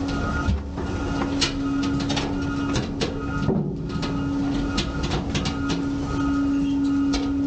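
A Heil front-loader garbage truck's hydraulic packer/ejector blade pushing a load of cardboard and recyclables out the open tailgate: a steady mechanical hum with scattered knocks, clicks and creaks from the load and the steel body.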